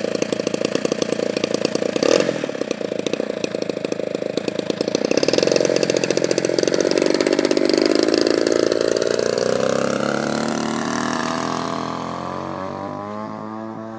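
DLE 35cc single-cylinder two-stroke petrol engine of a radio-controlled Corsair model running at idle, blipped once about two seconds in, then throttled up to full power for the takeoff run. Near the end the engine note slides down in pitch and fades as the plane runs away down the road.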